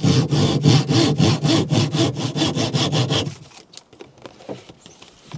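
Flush-cut handsaw, its teeth without set, cutting through a hardwood peg flush with a canoe's wooden gunwale cap in quick, even strokes. The sawing stops a little over three seconds in.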